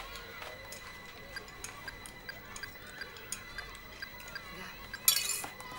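Small scattered clicks and taps from a mobile phone's keys being pressed and coffee cups being handled. About five seconds in comes a short, loud hissing rustle.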